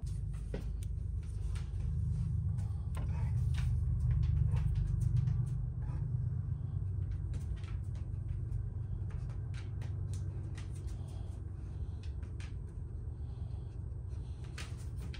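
Low, steady rumble of an oven running with its door open, with scattered light clicks and taps as a probe thermometer is handled and pushed into a roast.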